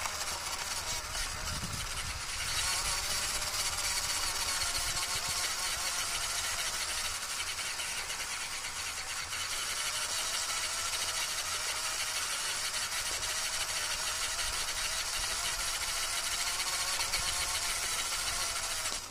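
Small electric motor and gears of a radio-controlled scale car whining steadily while it drives, with tyres rattling over a rough concrete path. It gets a little louder about two seconds in.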